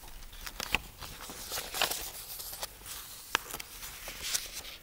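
Paper rustling with a few sharp light clicks, as pages of a reading text are handled and turned.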